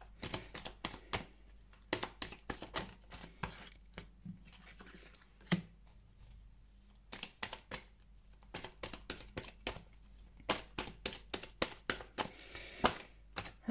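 Deck of oracle cards shuffled by hand: quick runs of quiet card clicks and slaps, with a sparser pause about halfway through.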